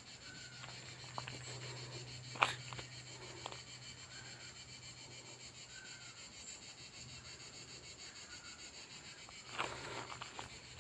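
Quiet woodland ambience with a faint insect drone and a few scattered footsteps on a gravel path, the clearest about two and a half seconds in. The steps pick up again near the end.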